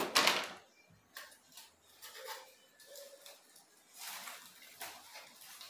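Leaves and stems of a potted Nepenthes pitcher plant rustling in short, irregular bursts as it is handled. There is a sharp click right at the start.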